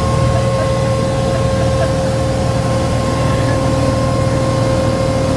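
Water taxi's motorboat engine running at speed, heard inside the wooden cabin: a steady low rumble with a constant whine on top and an even hiss.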